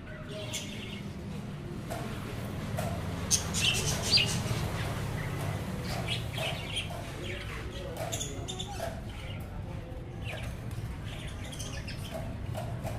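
Budgerigars chirping and chattering in a rapid, irregular stream of short high calls, loudest a few seconds in. A low steady hum runs underneath.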